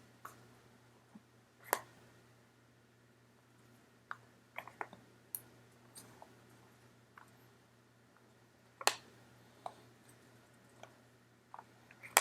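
Scattered light clicks and taps of cardboard trading cards being handled and sorted on a table, with two sharper snaps about 2 and 9 seconds in.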